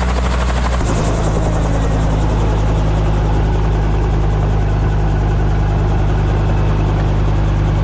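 Helicopter running close by, a loud, steady rotor and engine drone. Its low hum changes about a second in.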